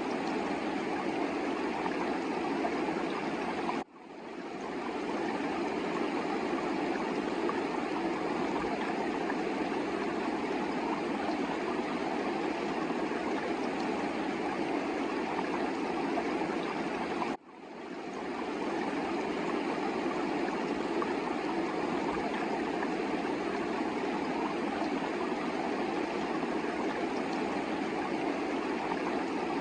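Mountain river water rushing steadily. The sound cuts out briefly about four seconds in and again past halfway, swelling straight back each time.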